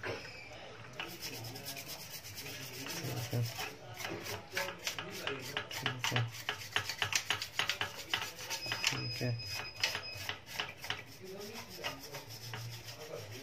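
Multimeter test-probe tips scraping and tapping on the solder pads of an inverter circuit board as resistors are measured one after another: a dense run of small scratchy clicks.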